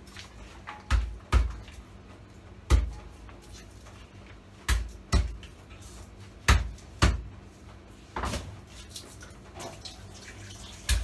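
Sharp knocks, about seven, irregularly spaced: a plastic bowl and spatula knocking against a metal cooking pot as fish pieces are scraped into it. Water runs faintly at a kitchen sink.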